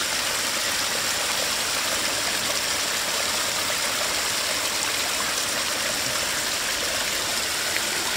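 Water running steadily: a small stream pouring down and trickling over rocks and wet ground.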